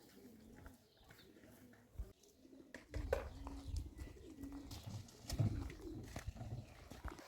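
A bird cooing, low repeated calls, with scattered clicks and knocks; the calls and a low rumble grow louder about three seconds in.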